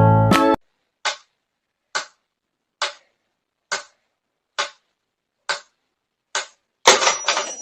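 Seven short, sharp ticks at an even pace, about one every second. Near the end a sudden loud, noisy sound cuts in, with a faint high whistle.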